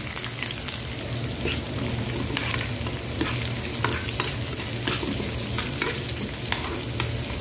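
Sliced red onion and garlic sizzling in oil in a non-stick wok, stirred with a metal spoon that clicks and scrapes against the pan many times. A low steady hum runs underneath.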